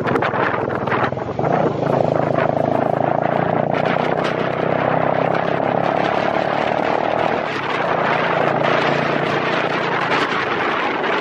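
Motorcycle engine running at a steady riding speed, with wind rushing over the microphone. A steady whine holds from about two seconds in until about seven and a half seconds.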